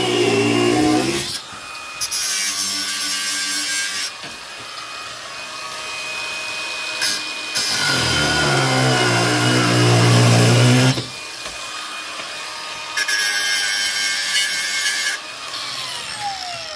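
Angle grinder cutting through a steel threaded rod that sticks out of a timber beam, in several bursts with short pauses between. Near the end the disc spins down with a falling tone.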